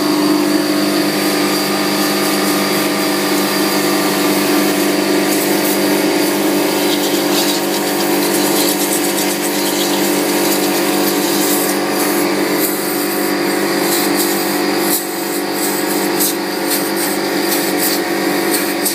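Air compressor running steadily while compressed air is blown from its hose nozzle: a constant motor hum with an even hiss of air above it.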